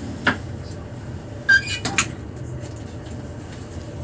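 Steady low hum inside a standing Class 395 high-speed train, broken by a sharp knock, then a short high tone about a second and a half in and another click just after.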